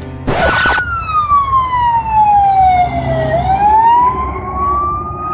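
Ambulance siren in a slow wail: one long falling sweep for about three seconds, then rising again, over a low traffic rumble. A brief burst of hiss comes just before it.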